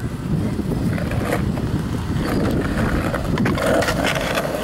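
Skateboard wheels rolling over asphalt: a steady low rumble.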